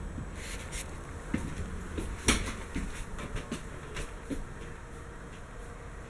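Scattered light knocks and clicks over a low steady rumble, the loudest a little over two seconds in: footsteps and handling as someone walks through a travel trailer's interior carrying the camera.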